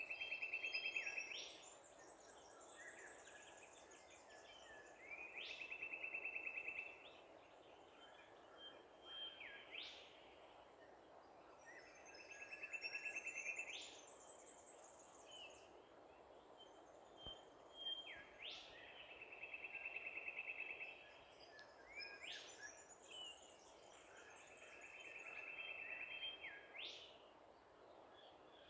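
A songbird repeating the same phrase every several seconds, a trill followed by a sharp rising note, faint over a steady background hiss.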